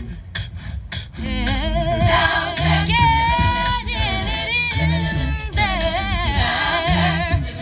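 A cappella group singing, with a solo voice carrying a wavering held note over backing voices and a low bass line; the voices come in about a second in.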